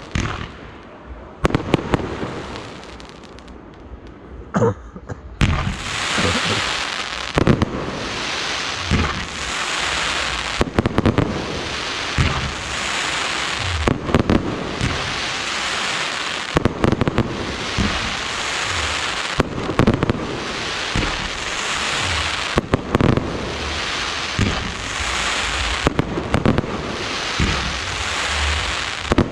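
Fireworks display: a few sharp bangs of shells bursting, then from about five seconds in a continuous hiss of many effects going off at once, with frequent loud bangs over it.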